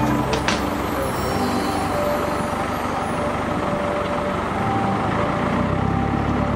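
Steady drone of a vehicle engine running at an even level.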